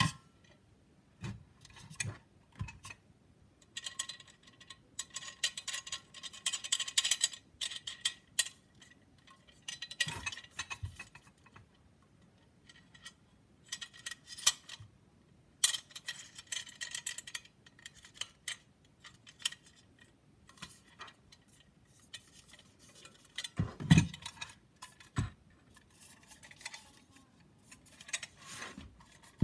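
Stainless steel exhaust tips with carbon-fibre sleeves and bolted swivel clamps being handled: irregular metallic clinks, rattles and scrapes, with a louder thud about two-thirds through.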